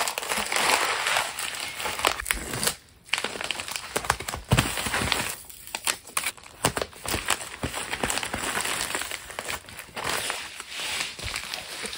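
Packaging being handled by hand while an order is packed: continuous crinkling and rustling with many small clicks and taps, pausing briefly about three seconds in.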